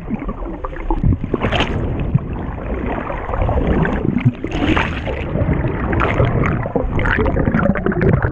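Muffled rushing and gurgling of water heard underwater through a waterproof camera housing as a swimmer moves through a pool, with scattered knocks.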